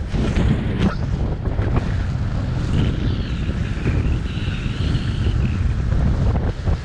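Wind buffeting the microphone as the rider sails fast across lake ice under a handheld kitewing, a steady heavy rumble.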